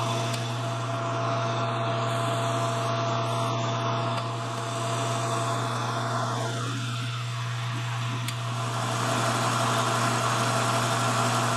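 Shop machine tool's motor running with a steady, unchanging hum while a small part is being made.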